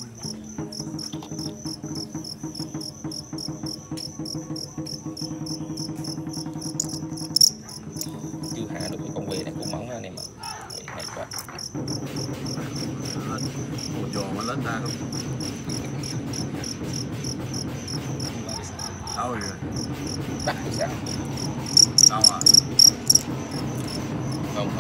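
Field crickets chirping in a fast, even pulse, with a run of much louder chirps near the end as two fighting crickets meet. A single sharp tap comes about seven seconds in, over a steady low hum.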